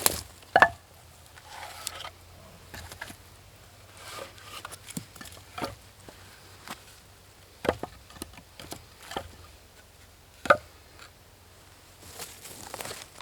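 Scattered, irregular knocks and clicks with light rustling, a few of them sharper, the loudest about ten seconds in.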